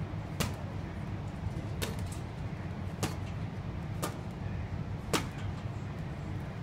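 Gloved punches slapping a hanging heavy punching bag: five sharp single hits, roughly one a second, over a steady low hum.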